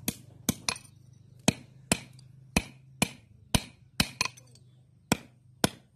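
Hand hammer striking metal on a small iron block in shoeing a bull: about a dozen sharp, ringing blows at an uneven pace of roughly two a second, some in quick pairs.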